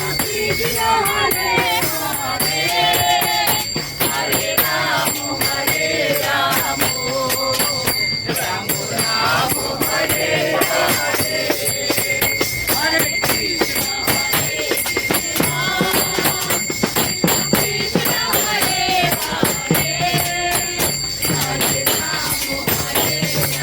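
Background music: a song with a singing voice over fast, steady rattling percussion.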